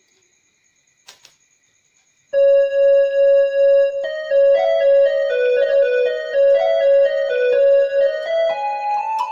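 Casio CTK-2550/2500 portable keyboard playing a melody on one of its preset tones. Held single notes start a little over two seconds in and become quicker and busier from about four seconds. Two faint clicks come about a second in.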